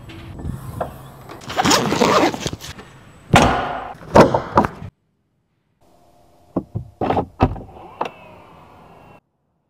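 Electric car body panels being worked, the front trunk lid and a door: a rush of noise about two seconds in, then clunks and thuds, the loudest about three and a half and four seconds in, and a quick run of knocks about seven seconds in.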